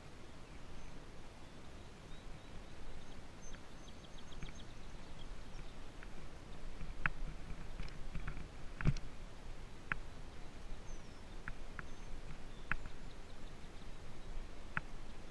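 Bicycle riding over a grassy field: a steady low rustle of the tyres through the grass, with scattered sharp clicks and knocks from the bike, the loudest a thump about nine seconds in.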